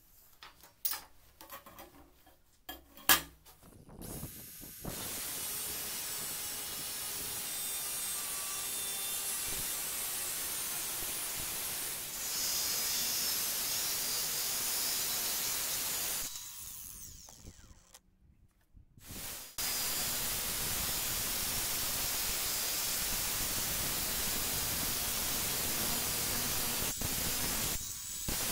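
Cordless angle grinder with a thin cut-off disc cutting through a steel circular saw blade: a steady, hissing cutting noise. It drops away for about three seconds a little past the middle and then resumes. A few sharp knocks of the blade being handled come first.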